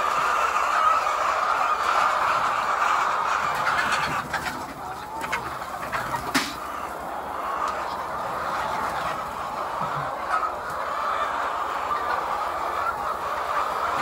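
A large flock of laying hens clucking together in a continuous, massed chatter. A few clicks and one sharp knock come a little before the middle.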